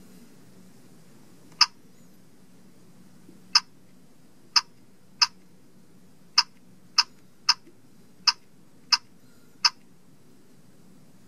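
LEGO Mindstorms NXT 2.0 brick's speaker giving a short electronic beep at each button press: ten beeps at uneven intervals as its arrow keys are pressed to scroll through program options.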